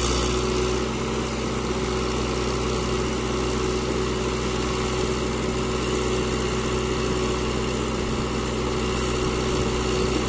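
Backhoe loader's diesel engine running steadily and evenly while its backhoe arm digs soil and swings it over a tractor trolley to dump it.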